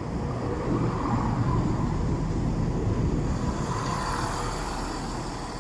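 Class 170 Turbostar diesel multiple unit running slowly alongside the platform as it comes in to stop: a steady rumble of its underfloor diesel engines and wheels that eases slightly towards the end.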